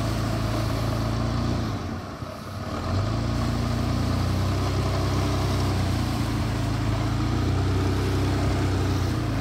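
Toyota Land Cruiser FZJ80's inline-six engine running at low revs as the truck works slowly through deep snow. It dips briefly about two seconds in, then settles back to a steady hum.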